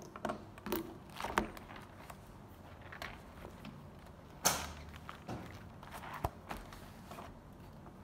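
Handling sounds of a spiral notebook, papers and a ballpoint pen on a desk: scattered light clicks and paper rustles, the loudest a sharp page flip about four and a half seconds in.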